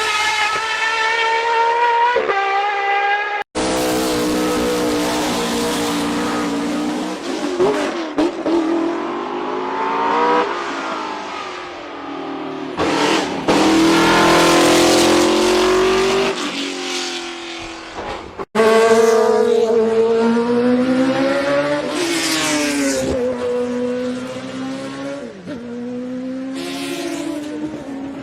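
High-powered race car engines revving hard, their pitch climbing and dropping again and again through gear changes, with tyre squeal here and there. The sound cuts abruptly between different cars twice.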